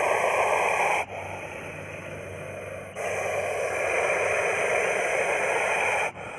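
Russell's viper hissing: two long, loud hisses with a quieter hiss between them, the first breaking off about a second in, the second starting about three seconds in and dropping away near the end.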